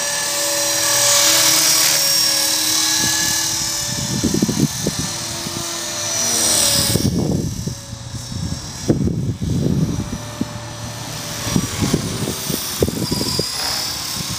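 EXI 450 RC helicopter in flight, its motor and rotor whine shifting in pitch. Partway through, the high whine drops away as the power is cut for a quick stop, and gusts of wind buffet the microphone.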